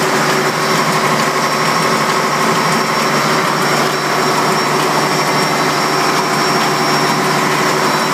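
MaK 6MU551AK six-cylinder marine diesel engine running steadily on a test run after its rebuild, its rocker arms and valves working under the open rocker cover.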